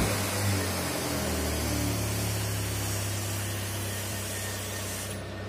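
Gravity-feed air spray gun hissing steadily as it sprays paint, over a steady low hum; the hiss stops shortly before the end.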